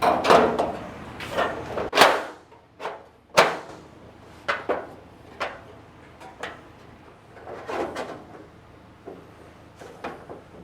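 Irregular metallic knocks and clanks of trunk lid sheet-metal parts being handled and fitted together. The loudest come about two and three and a half seconds in, followed by lighter taps and clicks.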